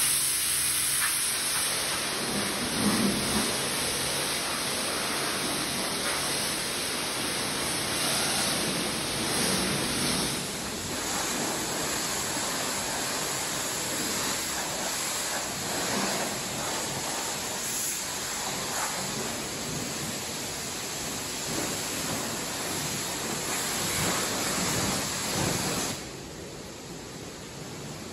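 High-pressure car wash wand spraying water onto a car's body: a steady, dense hiss and spatter. About two seconds before the end the spray stops and only a quieter hiss remains.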